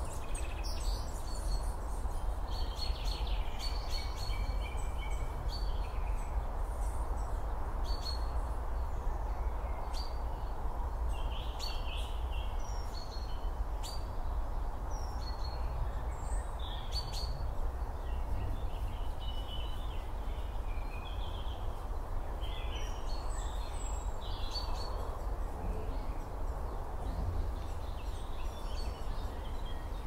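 Woodland birds chirping and calling, short high notes scattered throughout, over a steady low rumble of background noise.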